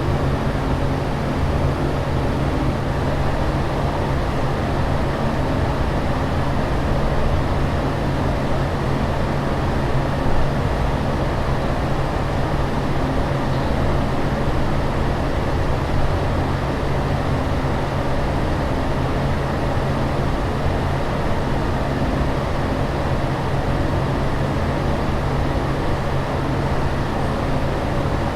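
Steady airliner cabin drone: jet engines and air flow making a constant rushing noise with a low hum underneath, unchanging throughout.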